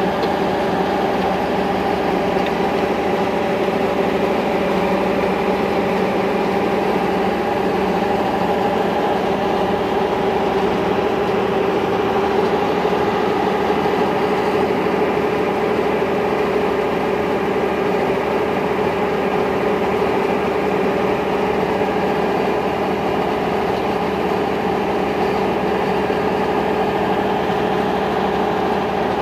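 Kubota combine harvester's diesel engine and machinery running steadily, heard up close, with a constant even hum.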